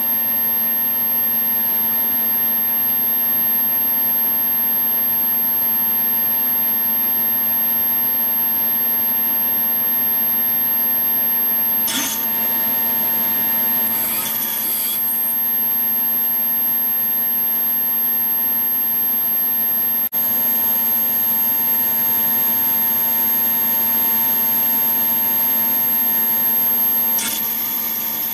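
Steady whir and hum from a harmonic-drive servo actuator rig and its control electronics, with a thin high-pitched whine over it. Short clattering noises come about twelve seconds in, again around fourteen to fifteen seconds, and near the end as the aluminium arms are disturbed and move.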